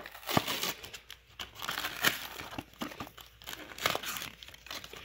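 Thin cardboard box of Topps baseball cards being torn and folded open by hand: irregular crinkling and crackling of the paperboard flaps, with several sharper crackles.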